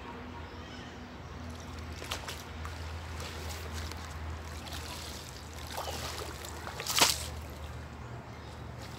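Pond water sloshing and splashing around a person wading and gathering a wet cast net by hand, with a sudden loud hit about seven seconds in.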